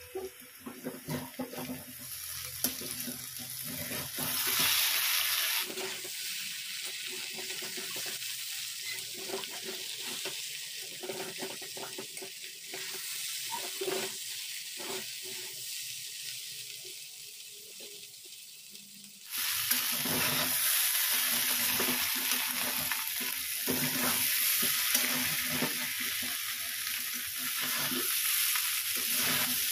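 Thin-cut potatoes frying in oil in a heavy-bottomed kadhai, sizzling steadily, while a metal spatula stirs and scrapes them around the pan with frequent clinks and scrapes. About two-thirds of the way through, the sizzle suddenly gets louder.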